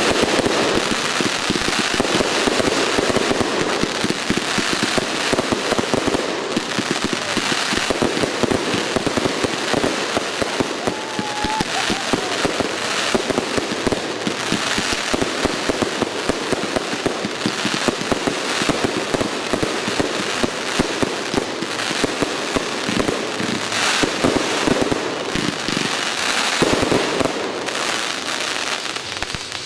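Aerial fireworks going off in a continuous barrage: dense crackling and popping with bangs mixed in, without a break.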